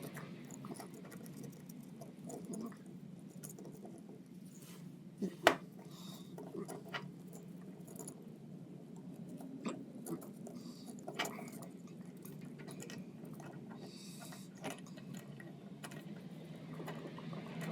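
Small tools and metal parts of a kitchen fan motor being handled during a bearing repair: scattered clicks and clinks, with a sharp knock about five seconds in and a few lighter knocks later, over a steady low hum.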